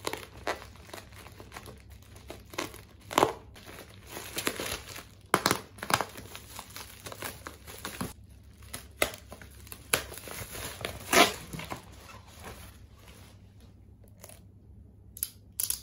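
Plastic courier mailer and bubble wrap crinkling and tearing as a parcel is cut open and unwrapped, in irregular rustles with a few louder crackles.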